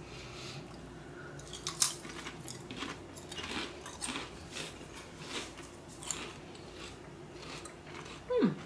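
Someone crunching and chewing Lay's potato chips, irregular crisp crunches roughly every half second to second, the sharpest about two seconds in. A short falling 'hmm' near the end.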